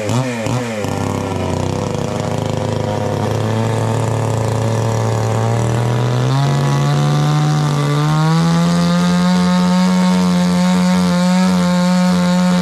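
Chainsaw running steadily, its pitch wavering briefly at first and then stepping up twice, near the middle and about two-thirds of the way through.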